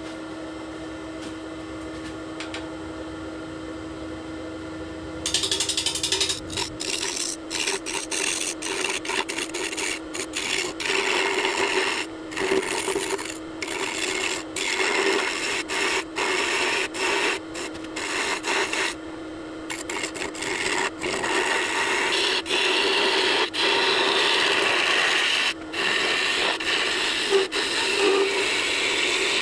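Wood lathe running with a steady hum; about five seconds in a turning gouge starts cutting the spinning walnut and epoxy blank, a loud rough scraping that comes in stretches with short breaks as the tool is eased off and back in.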